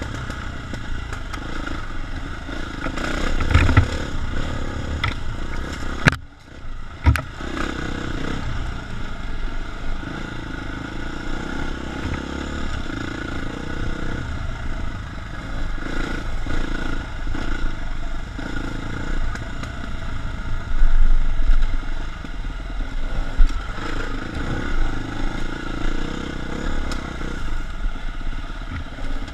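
KTM 350 four-stroke single-cylinder dirt bike running through a rough trail, its engine note rising and falling with the throttle, over clatter and rattling from the bike. About six seconds in the sound dips suddenly, with two sharp knocks a second apart.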